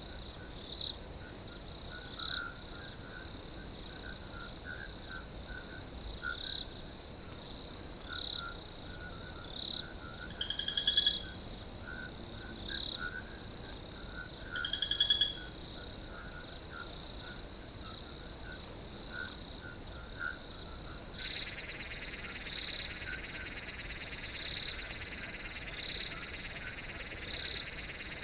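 Field crickets trilling in a steady high chorus, with short chirps repeating about once a second. Twice, a louder rapid rattling call stands out. About two-thirds of the way through, a steady lower buzzing joins in.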